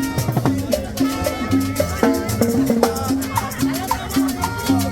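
Tropical cumbia dance music: a steady shaker-and-scraper percussion rhythm over a repeating bass line, with melodic instrument notes on top.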